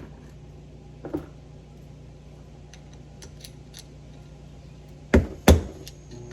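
A few light metallic clicks and taps, then two sharp metal knocks close together near the end with a brief ring: hammer blows on the steering box's adjuster locknut to knock it loose.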